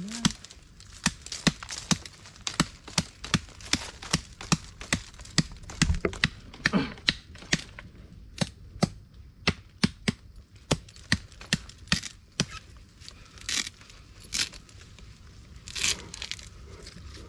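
Bolo knife hacking repeatedly at a tough plant stalk, sharp blows about two a second, thinning out later, with cracking and rustling of vegetation.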